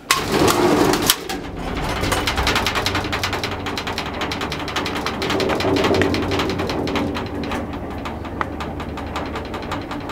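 Small elevator car setting off with a clunk, then running steadily: a droning hum with rapid, even ticking as the car travels.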